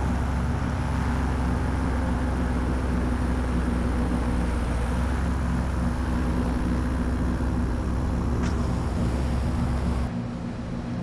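Paramotor engine running steadily at idle, a low drone with wind rushing past the microphone. About ten seconds in, the low drone drops out abruptly.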